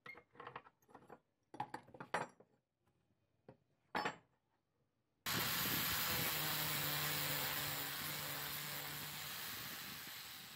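A few scattered clicks and clanks as a C-clamp is worked to hold a steel motorcycle sprocket against a wooden bench. About five seconds in, an angle grinder starts abruptly and grinds steadily across the steel sprocket.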